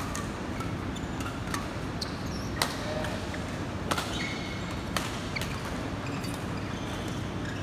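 Badminton rackets hitting shuttlecocks: a string of sharp hits at irregular spacing, the loudest near the middle, with short squeaks from court shoes on the floor. A steady hum of the hall lies underneath.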